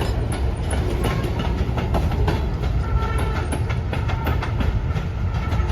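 Short freight train rolling past, with a steady low rumble and wheels clicking over the rail joints.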